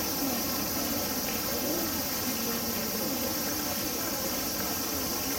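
Steady high-pitched chorus of insects, with faint distant voices murmuring underneath.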